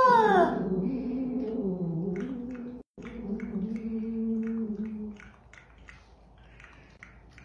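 Cat yowling at another cat in a face-off: a wail that sinks into a low, wavering moan, breaking off briefly about three seconds in and stopping about five seconds in, after which only faint clicks remain.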